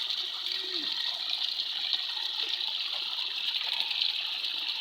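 Waterfall rushing steadily, a continuous even hiss of falling water.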